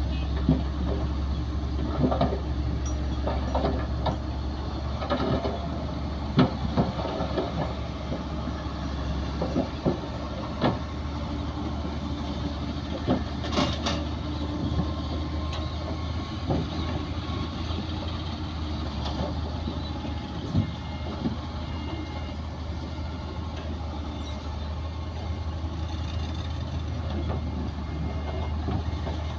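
Bulldozer's diesel engine running steadily, with scattered sharp knocks and clanks over the engine hum.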